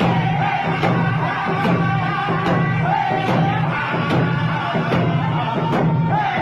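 Algonquin hand-drum song: a group of men singing together while beating handheld frame drums in a steady beat, a little more than one stroke a second.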